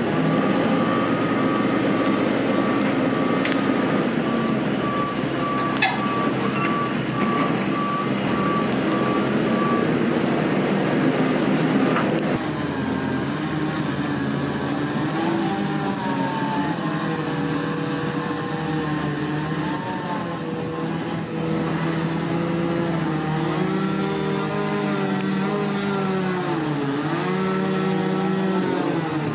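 Merlo Roto telehandler with a Westtech Woodcracker felling head at work. For the first twelve seconds or so there is a dense, noisy sound as the head's hydraulic saw cuts through the trunk, with a high tone pulsing in short regular beeps. After an abrupt change the machine's engine and hydraulics rise and fall in pitch as the boom carries the gripped log.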